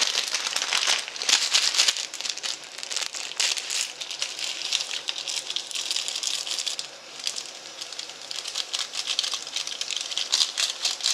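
Plastic instant-noodle packets crinkling and rustling as they are opened and handled, a dense, irregular crackle that eases briefly about two-thirds of the way through.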